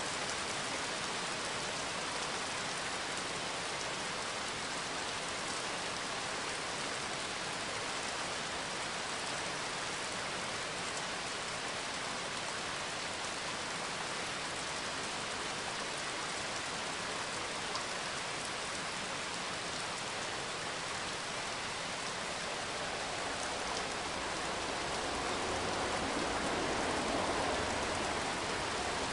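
Steady sound of falling rain, an even hiss with no break, swelling slightly a few seconds before the end.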